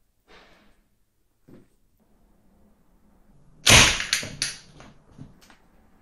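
Homemade crossbow released by its quick-release trigger: the string snaps forward with one sharp, loud crack about three and a half seconds in, followed by a few quicker knocks and a short rattle as it settles. Faint clicks of handling come before the shot.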